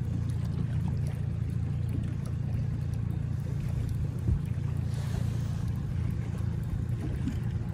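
Outboard motor running steadily at slow trolling speed, a low even hum. A brief knock about four seconds in.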